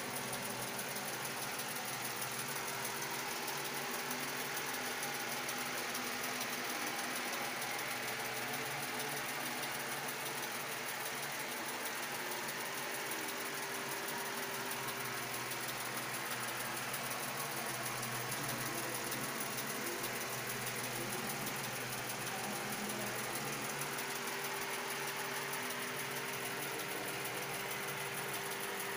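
Steady mechanical hum with a hiss over it, unchanging throughout, like a running motor or appliance.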